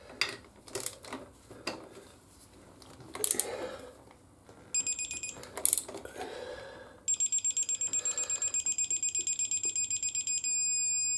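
Digital torque wrench tightening a motorcycle wheel bolt: a few clicks and knocks from the wrench and socket, then an electronic beep that turns into rapid pulsing, about nine beeps a second. Near the end it changes to a steady tone, the wrench's signal that the set torque of 60 Nm has been reached.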